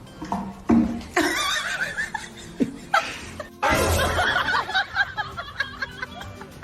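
People laughing in several bursts, the longest about a second in and about four seconds in.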